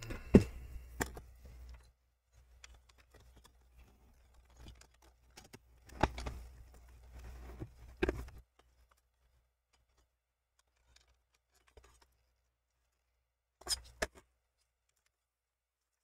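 Laptop display bezel and hinge cover being handled and worked into place: faint rubbing of plastic and metal parts, with light clicks about six and eight seconds in and two quick clicks near the end.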